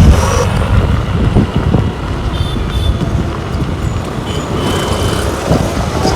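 Revolt RV400 electric motorcycle being ridden after its drive belt was refitted turned the other side out: a loud, steady rumble of wind and road noise, with no engine sound.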